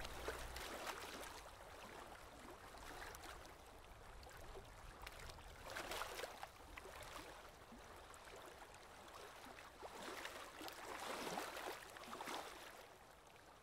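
Faint running-water ambience, a soft even wash that swells gently twice.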